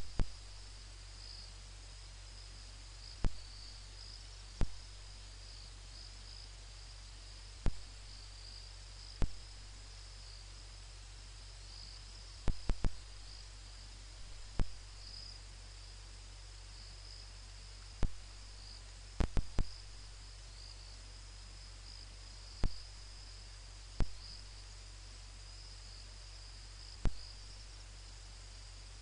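Steady high-pitched chirring of night insects such as crickets, over a low steady hum. Sharp, loud clicks break in at irregular intervals, about sixteen in all, some in quick pairs and triples, and they are the loudest thing heard.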